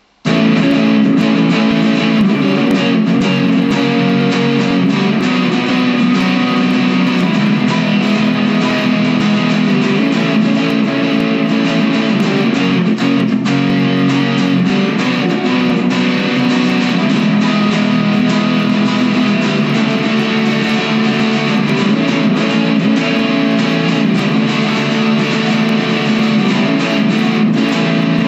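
Electric guitar music, starting suddenly less than a second in at a loud, even level.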